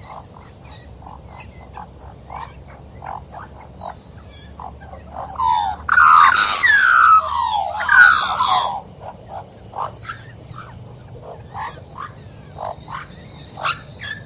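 Magpie calling: a run of short, spaced calls, with a louder stretch of quick falling calls about six to nine seconds in.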